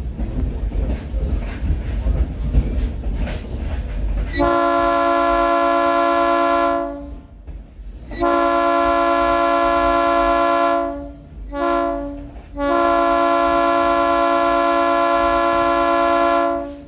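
Low rumble and wheel clatter of a slow-moving train, then a train horn sounding long, long, short, long: the standard warning for a grade crossing ahead.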